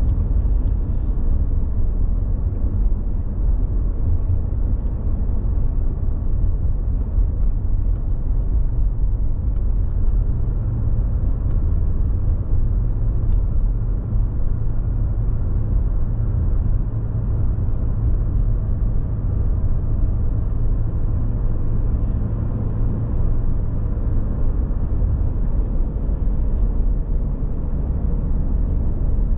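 Steady low road rumble of a car driving, heard from inside the cabin: tyre and engine noise, with no clear events.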